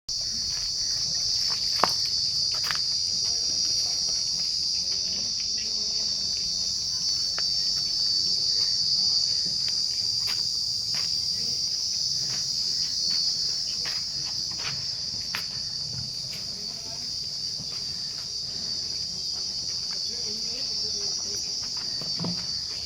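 A steady, unbroken chorus of insects, shrill and constant, with scattered short clicks and knocks, one sharper click about two seconds in.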